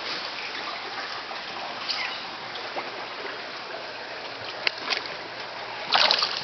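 Steady rush of running water with a few short splashes; the loudest splash comes near the end.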